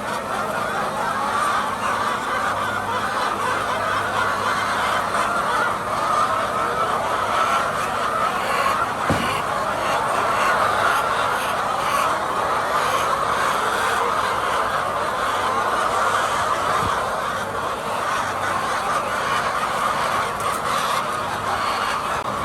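A large flock of hens clucking together in a steady, unbroken chorus.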